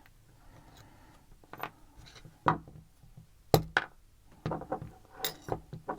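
Scattered small clicks and taps of tools and metal lock parts being handled as the screws are taken out of an American Lock 1100 padlock. Sharper knocks come about two and a half, three and a half and five seconds in, with quiet between.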